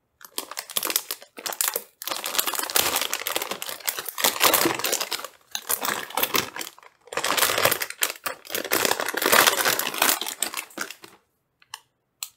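Packaging rustling and crinkling as a graphics card is pulled out of its box, in two long stretches, with a couple of short clicks near the end.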